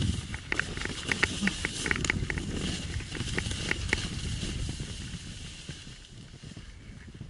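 Snowboard sliding down a snow slope: a steady hiss of snow under the board with many scattered light ticks, fading over the last couple of seconds.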